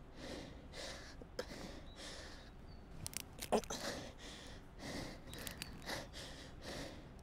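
A person breathing hard in short, audible breaths and sniffs, roughly one a second, with a few sharp clicks and a louder snap about three and a half seconds in.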